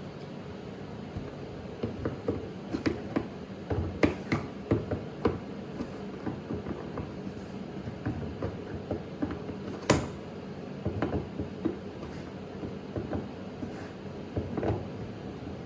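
Handling noises: scattered clicks and knocks of plastic housing parts being fitted back together, the loudest about ten seconds in, over a steady low hum.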